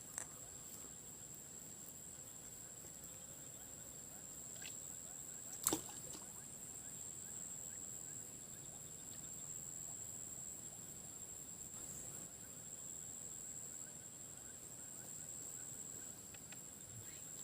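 Faint swamp ambience with a steady, high-pitched insect drone throughout. A single sharp click or snap comes a little before the middle.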